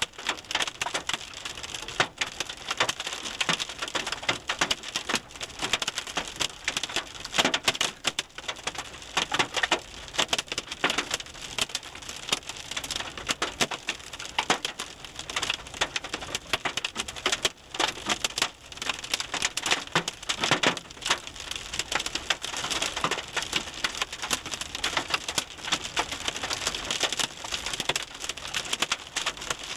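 Hail pelting a car's roof and windshield, heard from inside the car: a dense, continuous clatter of small hits.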